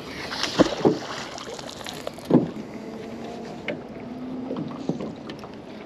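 A few knocks and thumps on a small boat, the loudest within the first second and another a little after two seconds, over a steady rush of wind noise.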